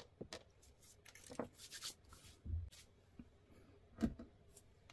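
Small plastic parts of a Mobility Joint Gundam figure being picked up and moved on a desk mat: faint scattered clicks and light rubbing, a soft thump about halfway through, and a sharper click about four seconds in.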